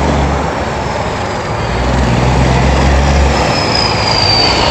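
Loud steady vehicle noise, with a low rumble that swells and fades and a thin high whine sliding down in pitch near the end.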